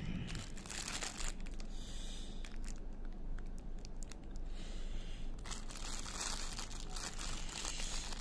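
Thin clear plastic bag crinkling and rustling as hands squeeze and open it around a syrupy sweet, with a louder bout of crinkling near the start and another from about five and a half seconds in, and small crackles between.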